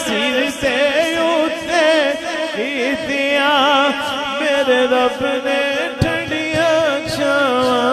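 A man's voice singing a Punjabi naat through a PA system: long held notes, bent and ornamented up and down, with no spoken words. A single sharp click sounds about six seconds in.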